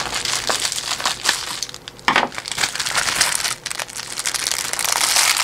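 Plastic packaging, bubble wrap and a plastic bag, crinkling and rustling as hands unwrap and handle it, with irregular crackles and a sharper crackle about two seconds in.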